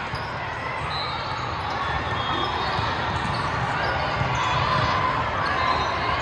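The steady din of a large indoor volleyball hall with several courts in play: balls being hit and bouncing, scattered short squeaks, and crowd chatter echoing through the hall.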